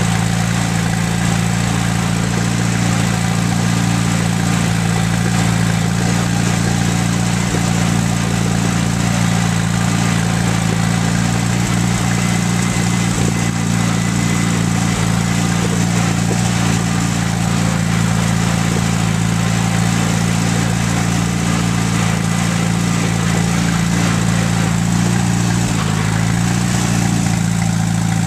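Allis-Chalmers B tractor's four-cylinder engine running steadily while the tractor is driven.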